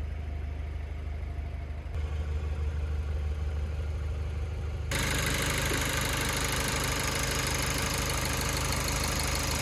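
Cupra Leon's 2.0 TSI turbocharged four-cylinder petrol engine idling steadily. About halfway through it becomes a little louder and brighter, with more hiss.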